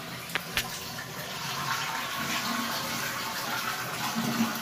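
Toilet tank being flushed with its water supply shut off: a couple of clicks just after the start, then the steady rush of water draining from the tank into the bowl, with no refill.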